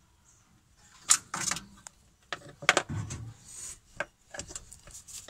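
Handling noise: scattered sharp clicks and knocks with brief rustles, from hands working on a motorcycle carburetor and its parts. The loudest knocks come about a second in and near three seconds.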